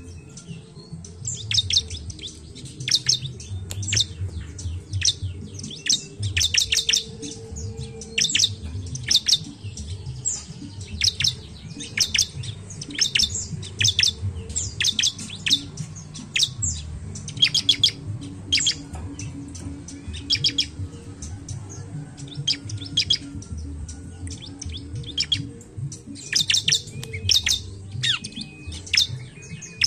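Bar-winged prinia (ciblek) calling: quick bursts of sharp, high chirps repeated over and over with short pauses, over a low background hum.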